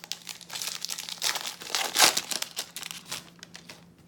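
Wrapper of a 2018 Topps Series 2 baseball card pack being torn open and crinkled by hand, a run of crackling that is loudest about two seconds in.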